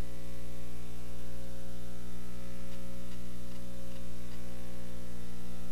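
Steady electrical mains hum with a faint hiss above it, unchanging throughout.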